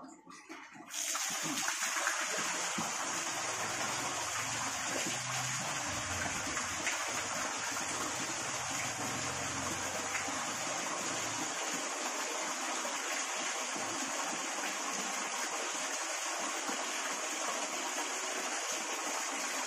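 Water jetting from a submersible pond pump's 3/4-inch outlet pipe and splashing onto rocks and into the pond. It starts suddenly about a second in as the pump is switched on, then runs as a steady, even rush.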